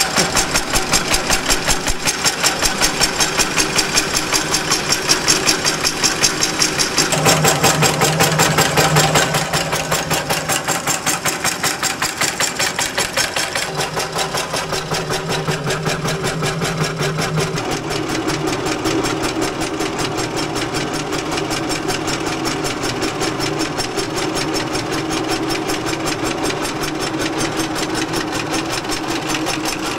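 Rubber band cutting machine running, its blade chopping rubber tubing into bands in a fast, even rhythm of clacks over a steady motor hum. The hum shifts in pitch about seven seconds in and again later.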